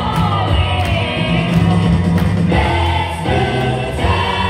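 Recorded music with several voices singing together, played over a DJ's loudspeakers.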